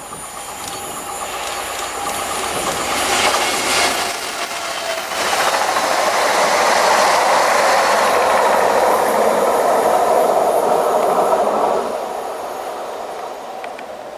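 A train passing at speed on the main line: wheel-on-rail noise builds over several seconds, stays loud, then drops off about twelve seconds in as the train goes by and fades away.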